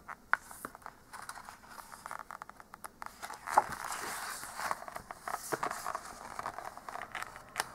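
A picture book's paper page being turned: a soft rustle and scrape of paper a few seconds in. Small clicks and taps of the book being handled come before and after it.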